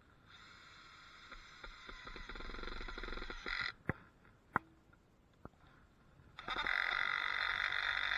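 A handheld power tool's electric motor runs in two bursts with a steady whine. The first lasts about three seconds and grows slightly louder, then stops abruptly. Three sharp clicks follow, and about six seconds in a second, louder burst starts sharply.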